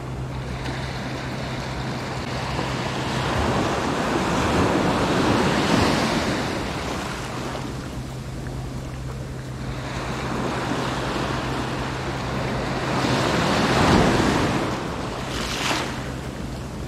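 Small waves breaking and washing up the sand at the water's edge, swelling twice, about five and fourteen seconds in.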